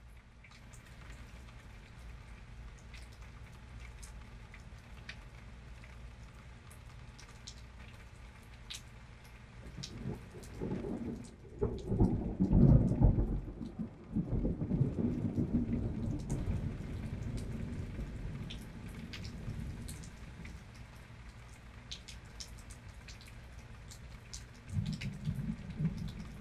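Rain falling with scattered drips, and a roll of thunder: about ten seconds in it builds to a loud peak a couple of seconds later, then rumbles on for several seconds, with another low rumble near the end.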